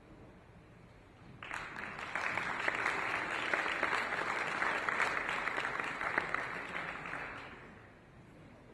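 Audience applauding. The clapping starts about a second and a half in, holds for about six seconds, then dies away near the end.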